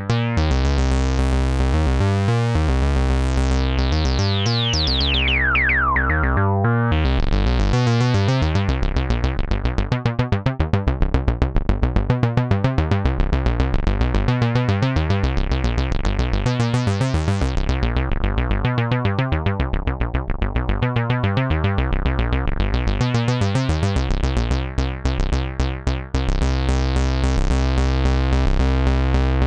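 Moog Mother-32 monophonic analog synthesizer playing a fast repeating acid bass line. Its filter opens and closes over several seconds, with a bright resonant sweep falling in pitch a few seconds in.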